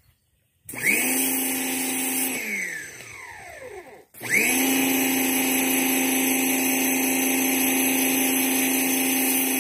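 Pressure washer motor starting with a rising whine, running steadily, then winding down in pitch about two seconds in. It stops briefly and starts again about four seconds in, then runs steadily while spraying water.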